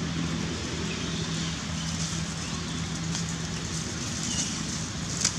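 A steady low motor hum over outdoor background noise, fading after about four seconds, with one sharp click near the end.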